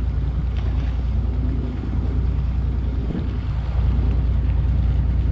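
Fishing boat's engine running with a steady low drone, over wind and sea noise; the drone gets a little louder near the end.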